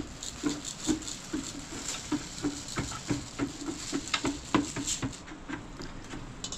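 A run of short, light knocks repeating about three times a second, somewhat irregularly, thinning out near the end.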